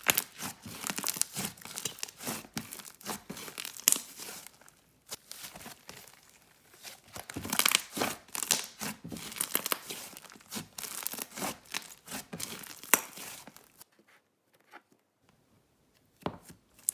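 Slime being played with by hand, stretched, squished and poked, giving runs of sticky crackles and pops. About fourteen seconds in there is a short pause.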